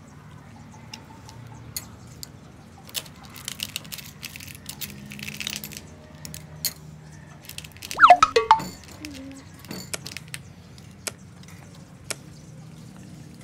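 Light clicks and clinks of snail shells and a metal spoon against a ceramic plate as cooked river snails are picked from their shells and eaten, with a louder burst of noise about eight seconds in.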